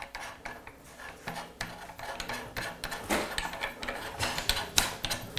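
A metal mounting yoke being fitted onto an LED light panel by hand: irregular clicks, taps and scraping of metal parts.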